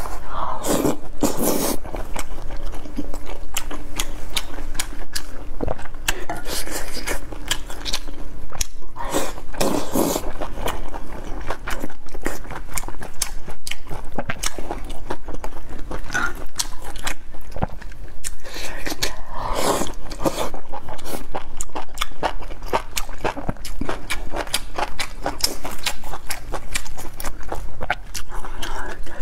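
Close-miked eating of spicy fatty beef, enoki mushrooms and noodles: steady wet chewing and mouth clicks, with louder slurps of noodles about every ten seconds.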